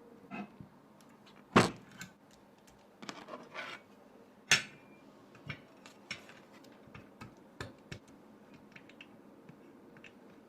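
Irregular clicks, taps and clacks from MonsGeek M1 mechanical keyboard parts being handled, with two sharper, louder clacks about one and a half and four and a half seconds in.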